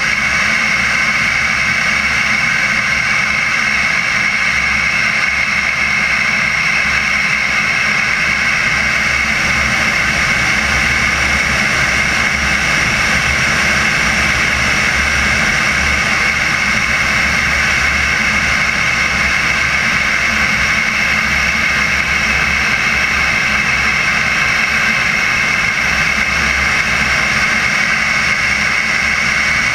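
Turbine engine of a radio-controlled CARF Viper model jet in flight, running with a steady whine and rushing air, heard from a camera on the plane's belly. A low, uneven rumble of wind buffeting on the microphone lies under it.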